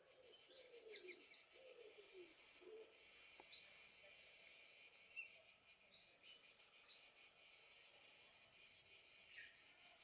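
Insects chirring steadily in a high, even chorus. A few soft, short falling calls come in the first three seconds, and there are two faint clicks.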